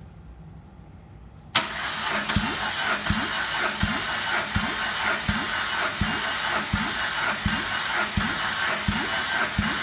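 Mitsubishi 4A92 1.6-litre four-cylinder engine being cranked for a compression test on cylinder one. The cranking starts abruptly about a second and a half in and runs steadily, with a low pulse about every 0.7 s as the tested cylinder compresses against the gauge.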